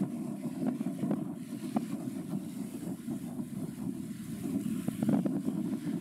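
Wind on the microphone outdoors: a steady low rumble with faint scattered clicks.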